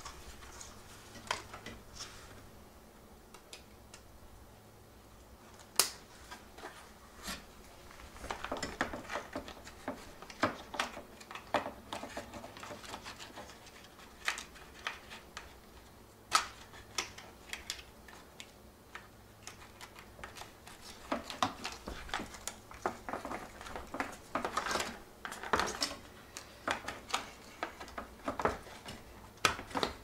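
Hard plastic parts of a dishwasher control panel and door clicking, tapping and rattling as they are handled and fitted together by hand. The clicks are irregular and come thicker in two stretches, one about a third of the way in and a longer one toward the end.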